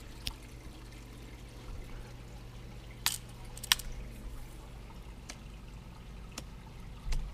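Faint steady water trickle from a running aquarium filter, under a low steady hum. A few light clicks and taps come as a T5 light fixture is handled; the sharpest pair is about three seconds in.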